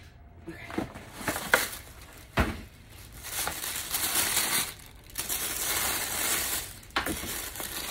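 Packing wrapping crinkling and rustling as boots are unwrapped and lifted out of a shoebox, in several long stretches, with a thump from the box about two seconds in.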